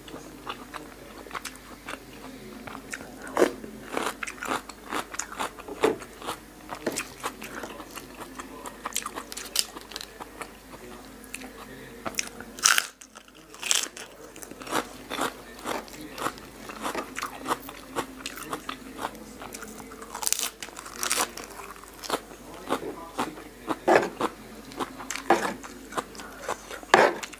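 Close-up crunching and chewing of a Thai pork-sausage salad with crisp lettuce leaves: irregular crisp bites and chews, with a short pause about halfway through.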